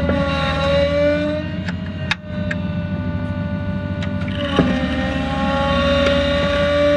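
PTO-driven hydraulic pump on a 2005 Ford F550 with a 6.0 Power Stroke diesel running, whining steadily over the engine's rumble. The whine's pitch dips and recovers twice as the hydraulic system takes load, with a few sharp clicks.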